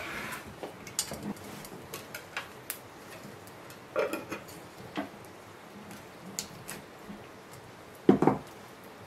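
Hands mixing a chopped herb filling in an enamel pot: soft rustling and squishing, with scattered light clicks of fingers and nails against the pot and a louder knock near the end.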